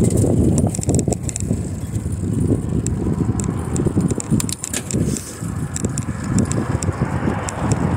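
Wind buffeting the microphone of a moving bicycle rider, with scattered light clicks and rattles.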